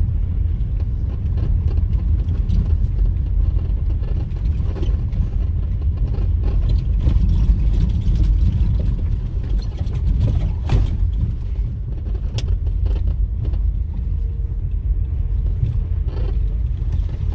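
A vehicle driving over a freshly graded, compacted dirt road: a steady low rumble with scattered knocks and rattles.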